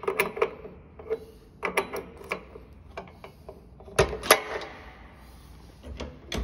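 Hand handling the fittings of a stainless steel ribbon blender, working a valve lever: irregular clicks and knocks, the loudest pair about four seconds in.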